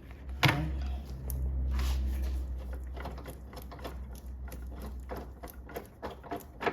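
Power ratchet spinning out the 18 mm torque-strut bolt: a steady low motor hum for about five seconds with rapid clicking and small metal ticks from the tool and socket.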